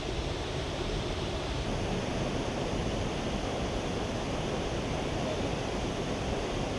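Rushing water from a river and its falls, a steady even hiss with no change.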